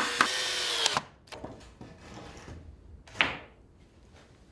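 Cordless drill driving a screw into wooden lath, running steadily and stopping abruptly about a second in. Light knocks of timber being handled follow, with one sharper clack about three seconds in.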